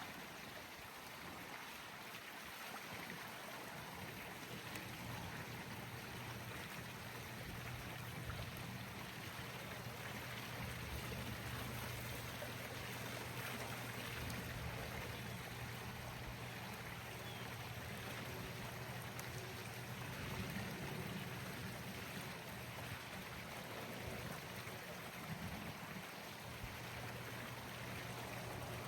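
Steady rush of flowing water, with a low, steady hum joining in about four seconds in.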